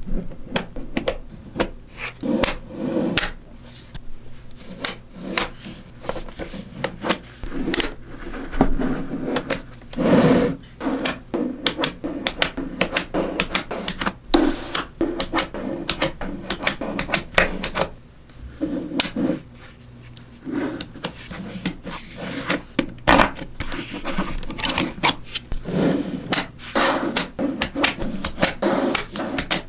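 Small magnetic balls clicking against one another in quick, irregular clusters as they snap together.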